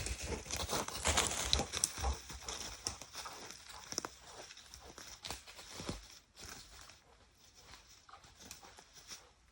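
Irregular crackling and rustling of twigs and leaf litter, busiest in the first few seconds and fading away after about six seconds.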